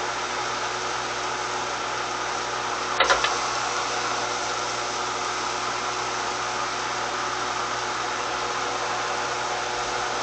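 Steady mechanical hum and hiss, with a brief clatter of three quick clicks about three seconds in.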